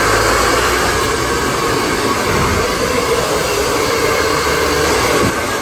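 Handheld hair dryer running steadily, a loud even rush of air and motor, switched off at the very end.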